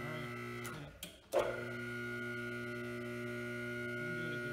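Electric hydraulic power-unit motor of an Atlas Pro-9D two-post car lift humming steadily. It cuts out under a second in as the overhead interrupt bar is pushed, then starts again with a sharp clunk about a second and a half in and runs on: the limit switch is cutting and restoring power to the motor as it should.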